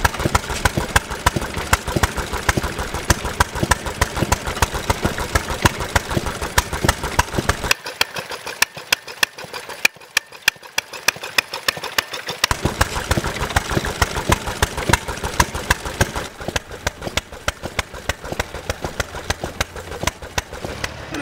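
Antique stationary gas engines running, a quick, even train of sharp ticks and pops. The deep low thump drops out about 8 seconds in and returns about 12 seconds in.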